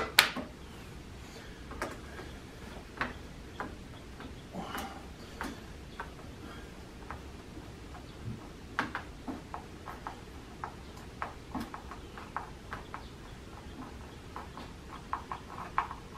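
Scattered small clicks and taps of hand work as a pipe is screwed to the camper's wall, with a quicker run of clicks near the end.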